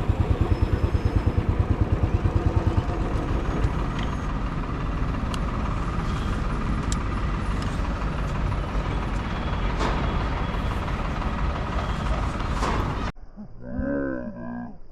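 Royal Enfield Standard 350's single-cylinder engine thumping at an even low beat, about seven a second, then a steady noisy rush of engine and road noise as the bike rides. Near the end it cuts off suddenly to faint voices.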